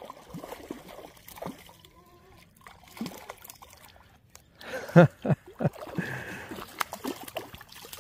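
A hooked trout splashing and thrashing at the surface of a stream while it is played and netted. A cluster of louder, sharp splashes comes about five seconds in.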